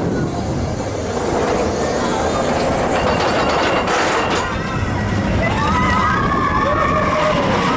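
Expedition Everest roller coaster train running along its track with a steady rumble and rush of air. In the last couple of seconds a high, wavering sound that rises and falls joins in on top of the rumble.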